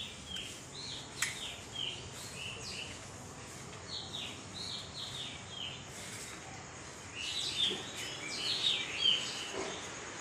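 Birds chirping: many short, high calls overlapping, busiest from about seven seconds in.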